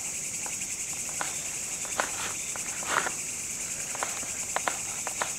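Knife chopping green chillies on a cutting board: irregular sharp taps, with a quicker run of taps near the end, over the steady high chirring of crickets.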